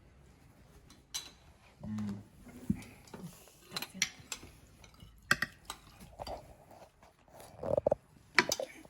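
Scattered light knocks and clinks of kitchen bowls and utensils, with a louder cluster near the end and a couple of brief faint murmurs.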